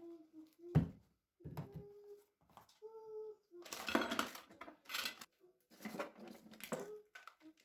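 Pots, lids and kitchenware being handled and set down: a string of clinks, knocks and clatter, the sharpest knock about a second in and a busier stretch around four seconds in.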